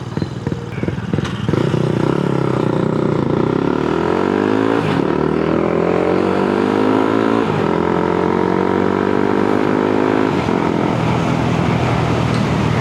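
Honda Grom's single-cylinder engine through a loud exhaust that is still above the noise limit, starting from uneven low revs and pulling away. It rises in pitch through the gears with two upshifts, then settles into a steady cruise.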